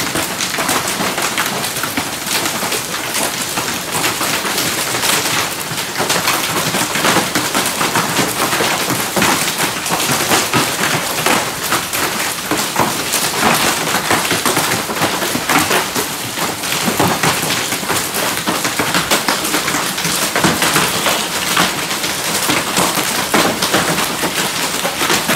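Heavy rain mixed with small hailstones pelting stone paving tiles: a dense, steady hiss of rain shot through with many sharp ticks of individual strikes.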